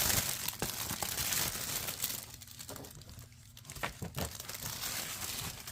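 Packaging crinkling and rustling as an item is handled and unwrapped. It is busiest in the first two seconds, goes quieter, then gives a few sharp rustles about four seconds in.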